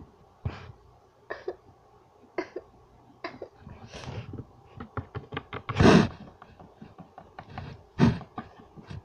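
Small plastic Littlest Pet Shop figures clicking and tapping as hands move them close to the microphone. A louder, rough burst about six seconds in and another shortly after eight seconds, one of which sounds like a cough.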